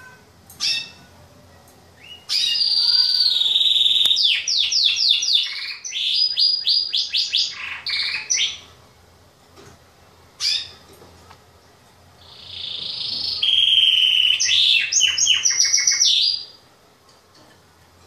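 A male canary singing: a short call, then a phrase of rapid trilled and repeated notes lasting about six seconds, another short call, and a second trilled phrase of about four seconds.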